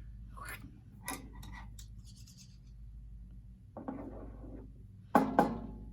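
Foley sound effects made with classroom props: light scrapes and rustles, then a short rattling scrape about four seconds in. Two sharp knocks follow close together near the end and are the loudest sounds, over a steady low room hum.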